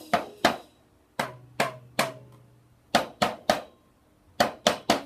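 Child's toy drum kit struck with sticks: sharp single hits, each ringing briefly, in clusters of three with short pauses between.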